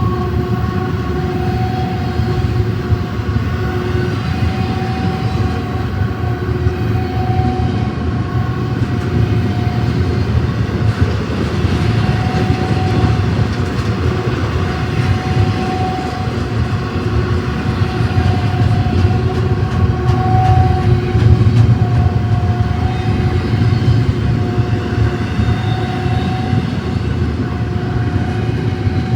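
Freight train passing: a steady, loud rumble of wheels and cars on the rails, with a pitched whine that keeps fading in and out.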